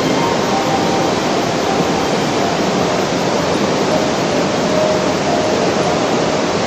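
Small waterfall and stream cascading over rocks: steady, loud rushing water.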